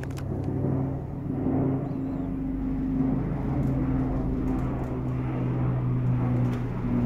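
Steady low mechanical hum of a running machine with a faint noise bed.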